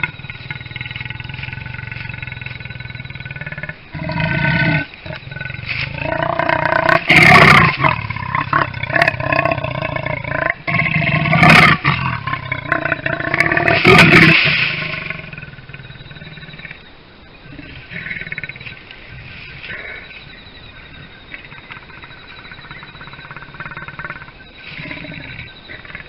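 A leopard growling and snarling at its own reflection in a mirror, with the loudest snarls around a third of the way in, near the middle and just past it as it rears up at the glass, then dying down to lower, quieter growls.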